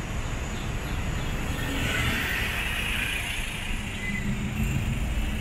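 City traffic heard from a moving motorbike: a steady engine and road rumble with passing cars. A hiss swells and fades around the middle.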